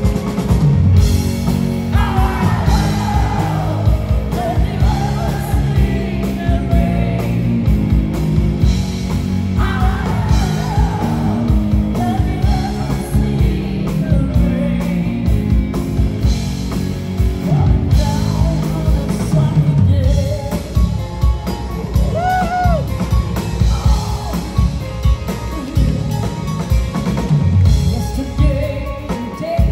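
Live rock band playing a song with a female lead vocal over drum kit, electric guitar, bass guitar and keyboards. The singing comes and goes in phrases, with a held, wavering note about two-thirds of the way through.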